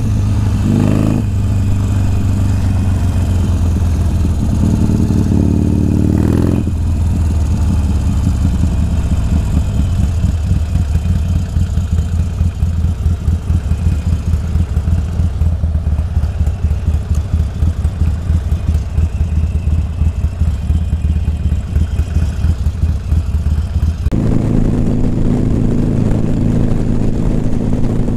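Motorcycle engine idling. About six seconds in it settles into a lower, pulsing idle, and near the end the engine note abruptly steps up again.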